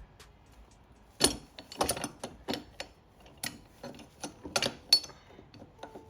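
Hand tools clinking and knocking against metal bike drive parts in a string of irregular sharp clanks, as a stuck part is worked loose.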